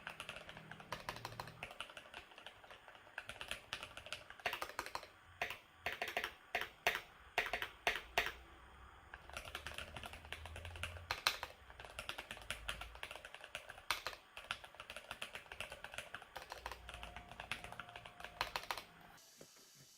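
Typing on a Keychron mechanical keyboard: runs of quick key clicks, with a stretch of slower, separate, louder keystrokes in the middle. The typing stops shortly before the end.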